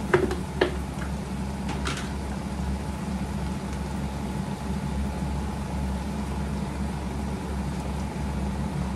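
A steady low hum, with a few light knocks in the first two seconds or so.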